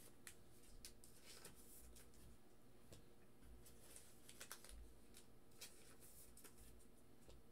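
Near silence: room tone with a low hum and a few faint scattered clicks.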